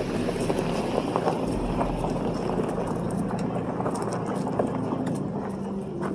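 Vehicle engines running, a steady low hum, with faint voices and scattered short knocks and clicks.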